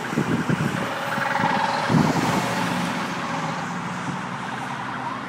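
Freeway traffic noise: vehicles going by, with a louder swell about two seconds in.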